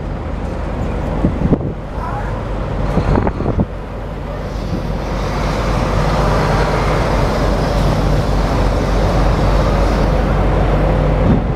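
A heavy truck's engine running, a steady low hum with noise that swells about five seconds in and then holds steady.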